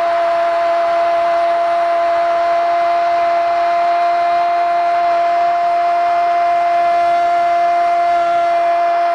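Football radio commentator's long drawn-out "gol" cry for a goal, held on one steady high note without a break.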